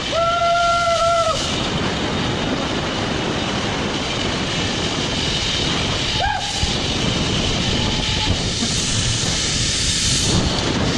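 Wind rushing over the microphone and a zip-line trolley running along the steel cable during a long zip-line ride, with a short steady whine in the first second and a half.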